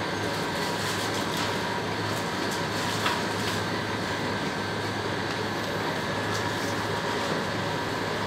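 Steady hum and hiss of supermarket refrigeration and air conditioning, with a few faint clicks and one sharp tick about three seconds in.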